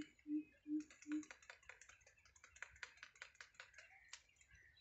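A low hooting note, pulsed about two and a half times a second, stops about a second in. Then comes a run of quick, irregular crisp clicks and snaps of grass stems in a stand of tall grass.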